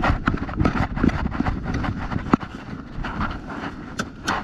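Airsoft guns firing: scattered sharp snaps, with a quick run of shots near the end, over wind rumbling on the microphone.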